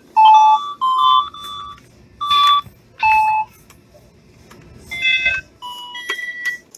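Electronic keys of a children's 'My First Music Book: Piano' sound book being pressed, playing a string of short beeping notes at different pitches, with a pause of about a second and a half in the middle.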